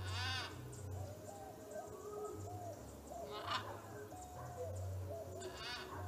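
Three harsh macaw squawks, one at the start, one about halfway and one near the end, over soft warbling calls of other birds and a low rumble.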